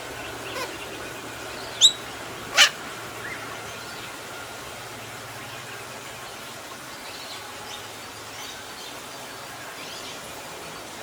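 Australian king parrot giving two short, sharp calls in quick succession about two seconds in, then fainter calls, over a low steady hum.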